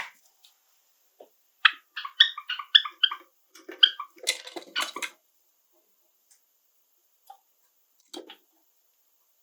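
Pet Java sparrow singing a short phrase: a quick run of clipped, chirping notes, about three a second, ending in a scratchier stretch, then a couple of faint clicks.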